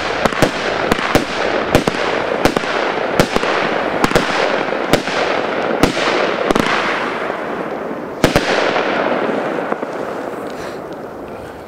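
Napoles 57-shot firework cake firing its last shots: about a dozen sharp reports, roughly one every half second to a second, over a dense crackle. One last shot comes about eight seconds in, and then the crackling fades away.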